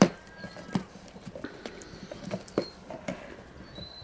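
German shepherd chewing and gnawing on a snow-covered rubber car tyre, making an irregular run of short clicks and knocks of teeth on rubber.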